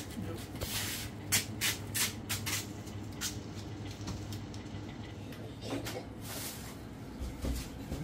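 A plastic bag of fruit rustling and crinkling as it is handled and carried, with scattered clicks and knocks, over a steady low hum.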